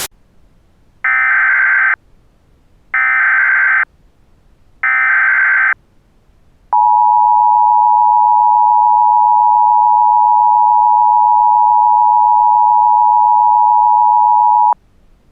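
Emergency Alert System SAME header: three bursts of warbling digital data tones, about a second each with short gaps between, followed by the EAS two-tone attention signal held steady for about eight seconds and then cutting off sharply. This marks the start of an emergency alert broadcast.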